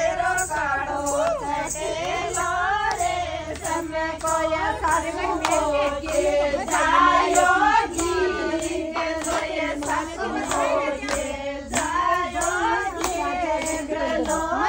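A group of women singing a song together, with steady hand clapping keeping time at about two claps a second.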